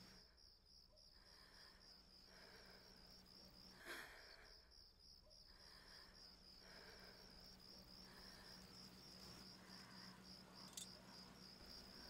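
Faint crickets chirping in a steady pulsing trill, with a soft click about four seconds in and another near the end.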